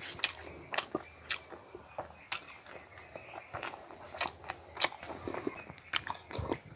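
Close-miked mouth sounds of someone chewing a mouthful of rice and duck egg curry: irregular wet smacks and clicks, two or three a second.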